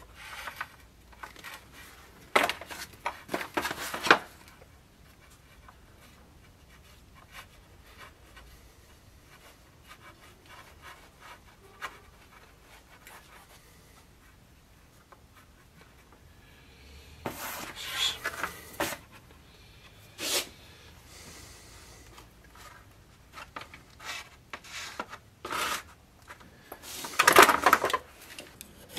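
Wooden scabbard strips and boards being handled on a workbench: short spells of rubbing and scraping with small wooden knocks, loudest near the end.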